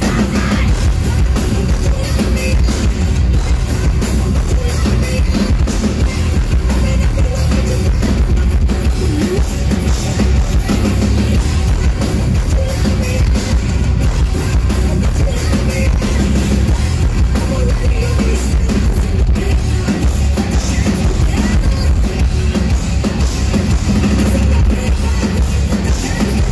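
Live heavy metal band playing loudly: electric guitars over a pounding drum kit and bass drum.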